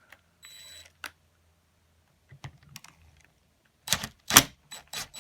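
Small clicks and taps of tool handling, then two loud sharp snaps about four seconds in: a screw in a two-stroke dirt bike cylinder head breaking loose under an impact driver, coming free rather than stripping.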